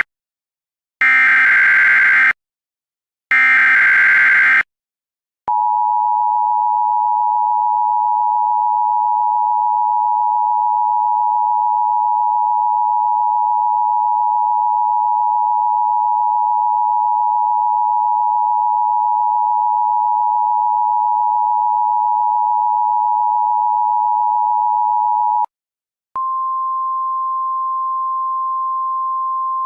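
Emergency Alert System header: the tail of one harsh data burst and two more full bursts, about a second each with short gaps between. Then the two-tone EAS attention signal holds steady for about twenty seconds and stops. After a brief pause, a single steady, slightly higher weather-radio alert tone begins, signalling a warning message to follow.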